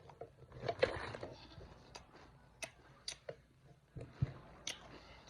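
Pretzel sticks being taken from the bag and bitten and chewed: a series of scattered, sharp, faint crunches and clicks, with a dull knock about four seconds in.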